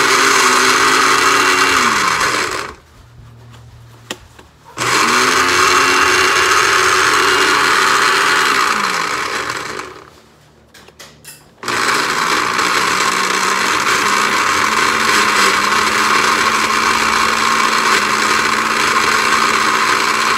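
Countertop blender run in three bursts. Each time the motor spins up, runs steadily, then winds down when it is switched off: about 2 s in and about 9 s in. It starts again about 12 s in and keeps running.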